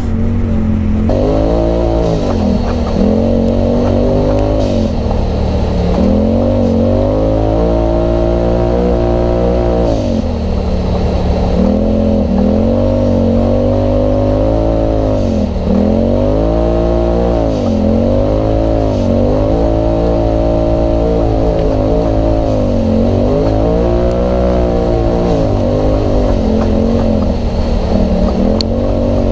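Polaris RZR Turbo's turbocharged twin-cylinder engine, fitted with an Agency Power exhaust, revving up and dropping back over and over as the machine is driven along a dirt trail, with the pitch rising and falling every second or two.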